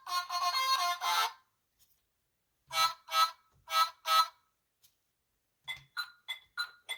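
Electronic tunes and beeps from a children's sound book's sound module. A short melodic jingle ends about a second in, then four quick tonal honks follow, then a fast run of short chirping beeps near the end.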